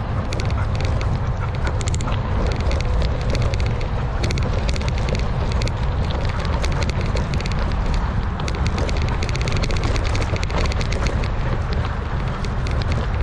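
Mountain bike rolling along a dirt singletrack: a steady low rumble from the tyres and wind buffeting the microphone, with stretches of rapid clicking and rattling from the bike.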